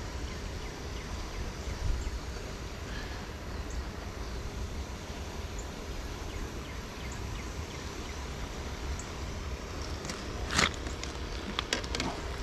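Steady outdoor background noise by a river: an even hiss over a low rumble. About ten and a half seconds in comes one sharp knock, and a few small clicks follow just after.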